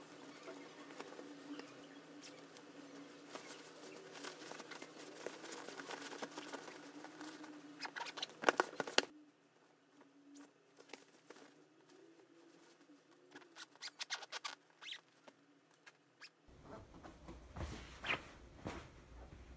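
Soft fabric rustling and light taps as bedding and a stuffed body pillow are handled and shifted on a bed. A faint steady hum sits under the first half and stops about nine seconds in, after which the rustles come more sparsely.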